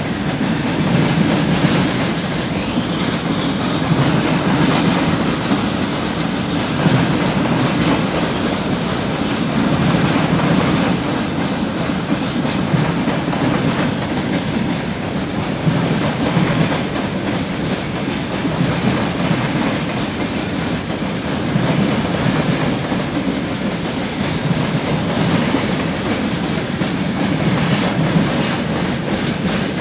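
A long freight train's loaded open wagons rolling steadily past, with the continuous rumble of steel wheels on rail and clatter over the joints.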